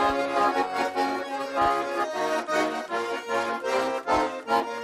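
Russian garmon (button accordion) playing a lively folk tune in an instrumental break between sung verses, with chords in a steady rhythm.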